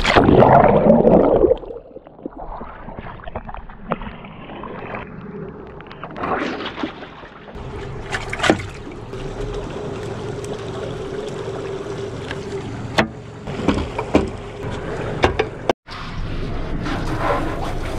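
Sounds of a boat on the open sea: water rushing and sloshing, loudest in a burst in the first second and a half, over a steady hum. Scattered knocks and clicks run through it.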